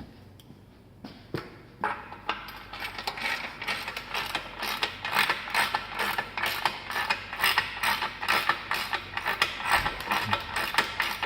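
Ratchet tool clicking in quick strokes as a bicycle bottom bracket is screwed into the frame's shell. A couple of knocks come first, and the steady clicking starts about two seconds in.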